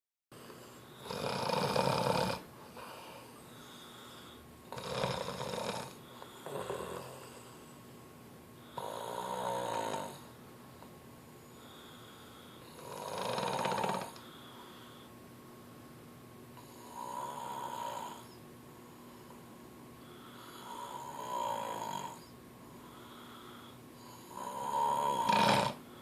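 A woman snoring in her sleep: loud, rough snores about every four seconds, each lasting around a second, with quiet breathing gaps between them.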